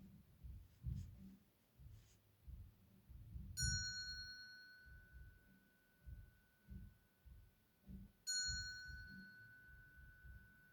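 A metal chime struck twice, about four and a half seconds apart. Each strike gives one clear, high tone that rings on and fades slowly, over faint low thumps.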